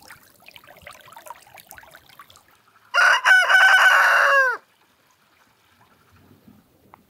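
Faint trickling of a small stream of water running over the ground, then about three seconds in a rooster crows once, loud and about a second and a half long, its pitch dropping at the end.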